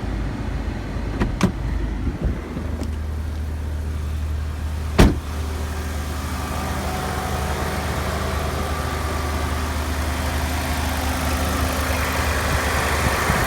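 2011 Jeep Liberty engine idling steadily with the air conditioning running. There are a few light clicks in the first couple of seconds and one sharp knock about five seconds in.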